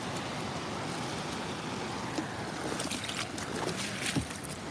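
Steady rushing of flowing floodwater, with a few faint knocks.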